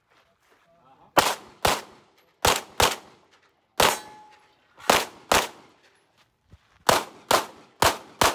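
Semi-automatic pistol shots, about eleven, fired mostly as quick pairs half a second apart with roughly a second between pairs, each crack followed by a short echo.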